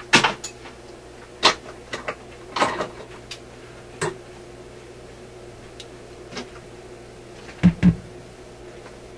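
Scattered clicks and knocks of equipment and cables being handled, with two louder thumps close together near the end, over a steady low hum.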